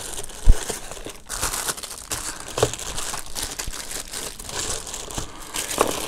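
Plastic packaging bag crinkling and rustling as it is handled, with a sharp knock about half a second in.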